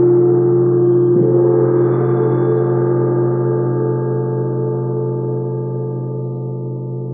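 A struck metal percussion instrument ringing with a deep, sustained, many-toned hum, struck again softly about a second in and then slowly dying away.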